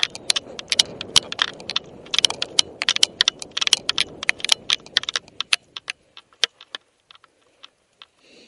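Rapid rattling and clicking from a camera rig worn by a moving dog, with rustling underneath. The clatter is dense for about six seconds, then thins to scattered clicks.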